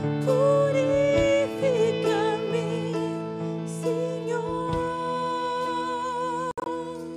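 A woman sings a slow worship song into a microphone over sustained chords from a Nord Stage 2 stage keyboard. Her melody wavers with vibrato, and in the second half she holds one long note. The sound cuts out for an instant near the end.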